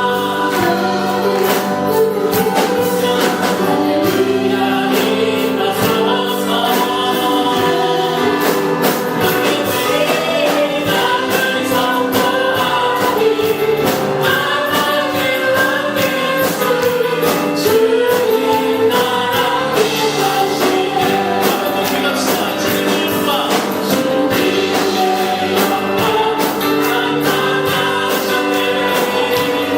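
Congregation singing a gospel praise song with a band, to a steady beat.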